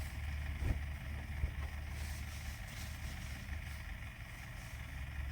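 Nissan X-Trail SUV running, a steady low rumble with two brief knocks less than a second apart near the start.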